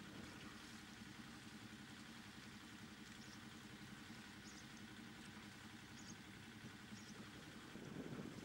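Faint, steady hum of a sailing yacht's engine running as the boat motors along. It grows a little louder near the end.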